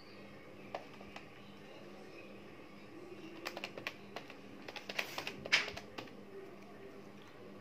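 A quick run of light clicks and taps, bunched about three to six seconds in with one sharper click in the middle of them, over a faint steady hum.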